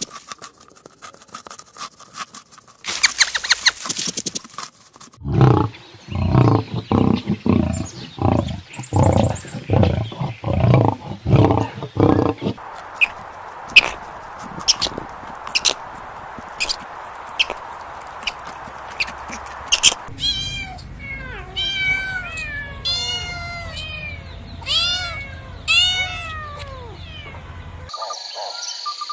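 A run of different animal sound clips: about a dozen low calls in a steady rhythm, then a stretch of hiss with sharp clicks, then repeated chirping calls that fall in pitch.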